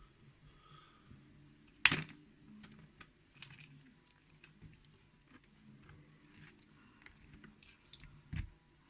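Light metallic clicks and taps of a pin-tumbler challenge lock and small tools being handled as the lock is taken apart. There is one sharp click about two seconds in and a duller knock near the end.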